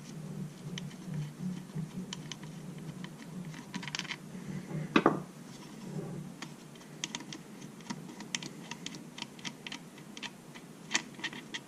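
Small, sharp clicks and clinks of hand tools, screws and metal parts being handled on a workbench while an outboard's water pump housing is taken apart. One louder knock comes about five seconds in.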